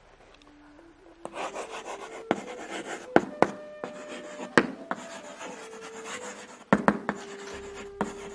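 Chalk scratching on a blackboard as words are written, starting about a second in, with several sharp taps of the chalk striking the board.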